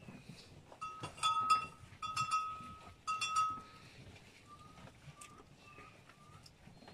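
A metal bell clanking in three bouts about a second apart, each with a sharp strike and a brief ring, the loudest about a second and a half in. This is followed by a series of short, high chirps.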